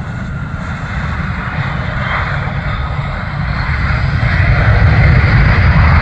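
Jet engine noise from a CRJ550 regional jet's twin GE CF34-8C turbofans during its landing rollout: a steady low rumble with a rushing hiss above it, growing louder over the last couple of seconds.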